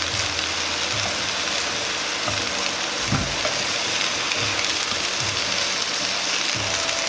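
Cabbage and other vegetables sizzling steadily in oil in a non-stick frying pan over low heat, stirred with chopsticks.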